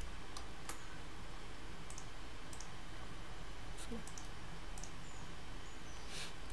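Computer mouse buttons clicking: about ten sharp, irregularly spaced clicks with a louder one near the end, over a steady low hum.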